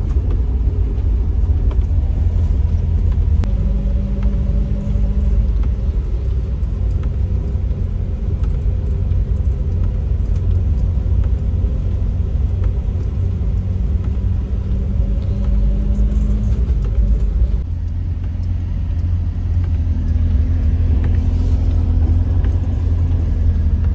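Maruti Gypsy 4x4 driving on a frozen, snow-covered road, heard from inside the cabin: a steady low rumble of engine and tyres, with the engine note rising a little now and then.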